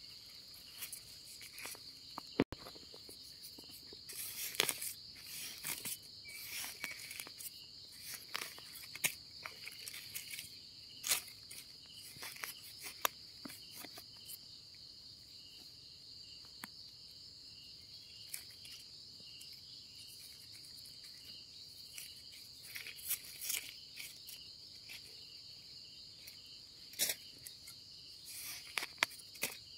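Steady high-pitched chirring of night insects such as crickets runs without a break. Over it come scattered short crackles and rustles of dry leaves and soil being handled, with a cluster of louder ones near the end.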